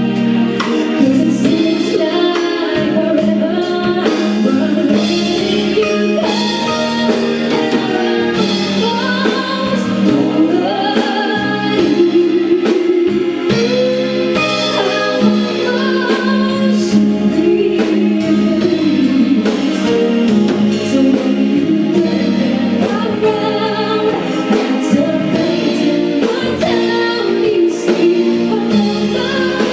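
A woman singing lead with a live band: electric guitar, drums and keyboards playing behind her.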